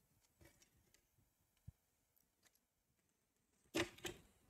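Near silence with a few faint clicks, then two short handling noises near the end as a power-supply circuit board in its sheet-metal chassis is moved about by hand.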